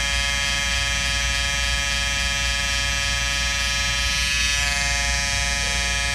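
Wahl Peanut electric clipper buzzing steadily, its blade worked against machine-embroidery stitches to cut them out.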